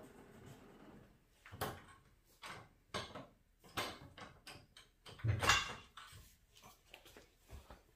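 Irregular knocks, clicks and clunks of someone handling tools and gear in a garage, the loudest a heavier thump about five and a half seconds in.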